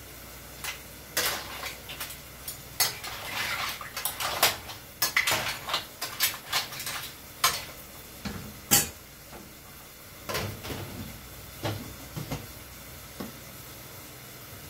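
A metal ladle clinking and scraping in a steel pot of cooked mussels in their shells, in a quick run of sharp clinks that thins out after about nine seconds.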